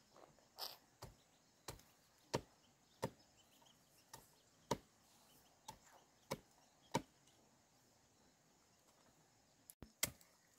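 Repeated chopping blows of a hand tool, about ten strikes over seven seconds at an uneven pace, then a pause and a couple of sharper knocks near the end.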